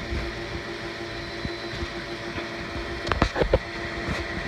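Steady engine hum with a faint regular pulse of about four beats a second, and a few sharp knocks about three seconds in.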